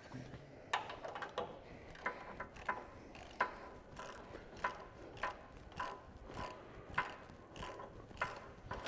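Hand socket ratchet clicking in regular strokes, about one every half second or so, as it runs in the bolts fastening the tire carrier bracket to the rear bumper.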